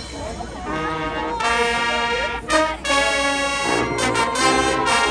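High school marching band brass playing loud, long held chords, coming in about a second in over crowd murmur, with a brief break in the middle.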